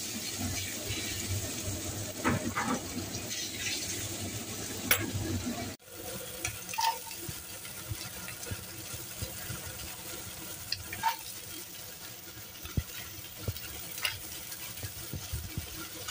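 Pork and carrots sizzling in a hot stainless-steel wok as a spatula stirs them, scraping and clicking against the pan. About six seconds in the sound breaks off and returns quieter: a softer sizzle with occasional light taps as the stir-fry goes on and snow peas go in.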